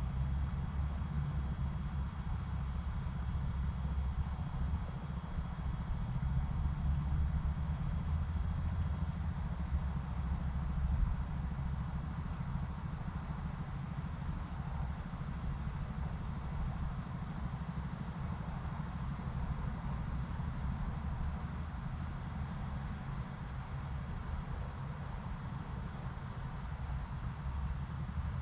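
Insects trilling steadily over a low, even rumble.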